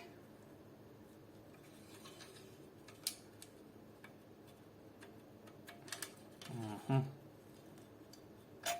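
Scattered small metallic clicks and clinks as the barrel and hop-up chamber of a disassembled airsoft AK rifle are handled, a few separate sharp taps over several seconds.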